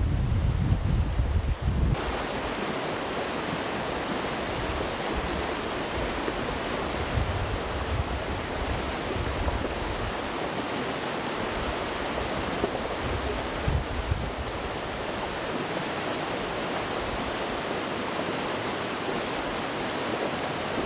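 A creek in flood after heavy rain, its muddy water rushing and churning through the stream bed in a steady, even rush. Wind buffets the microphone with a low rumble for the first two seconds, then stops abruptly.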